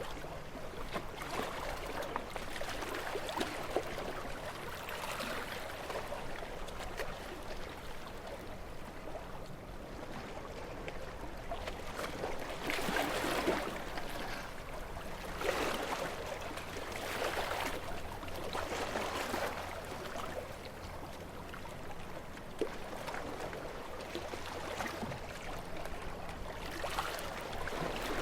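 Gentle sea waves washing onto a beach, small swells of surf and foam every two to three seconds over a steady wash of water.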